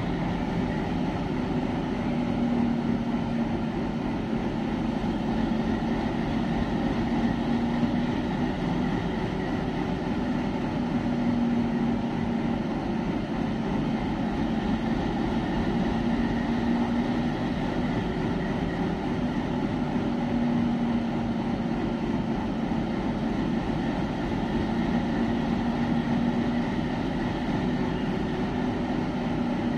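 Indian Railways WDG-3A diesel locomotive's 16-cylinder ALCO 251 engine idling steadily while the locomotive stands still. Its low hum swells and fades slowly every few seconds.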